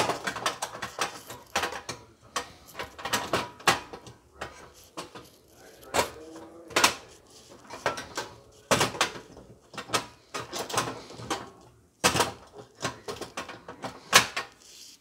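Irregular clicks and knocks from a portable butane camping stove being handled at its gas-canister compartment.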